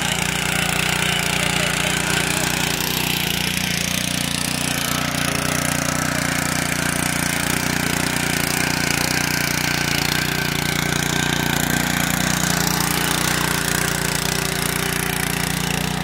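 Honda FJ500 power tiller's GX160 four-stroke engine running steadily under load while its rotary tines till the soil.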